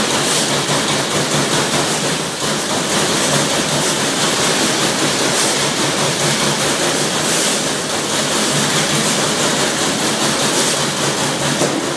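Trumpf TruPunch CNC punch press punching a copper sheet, with steady loud mechanical noise from the machine; the level dips briefly about two seconds in.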